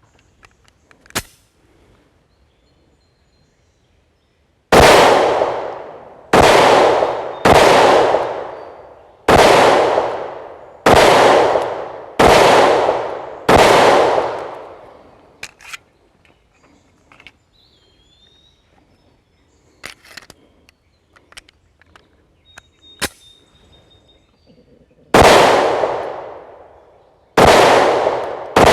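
Remington R51 9mm pistol firing: seven shots at one- to two-second intervals, each trailing off in an echo over about a second. Then a pause with small clicks and knocks of handling, and two more shots near the end.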